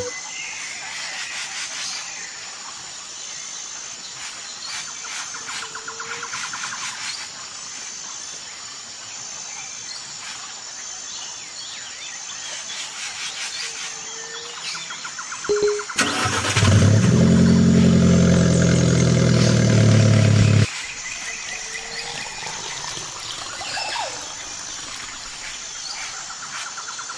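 Outdoor background with birds chirping. About two-thirds of the way in, a loud motor starts up, runs for about five seconds with a low steady hum, and cuts off suddenly.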